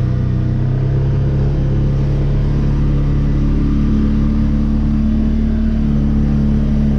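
Engine of a vehicle towing a makeshift field drag, running steadily under load in low gear, its pitch rising slightly a couple of times.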